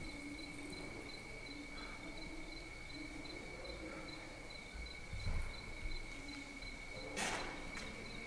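Crickets chirping steadily, a high trill with a regular pulse about three times a second. A low thump comes about five seconds in, and a short rustle just after seven seconds.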